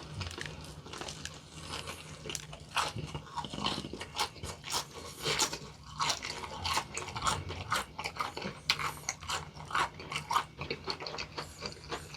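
Close-miked crunching and chewing of fried chicken coated in a crisp fried-potato crust: many sharp, irregular crunches in quick succession.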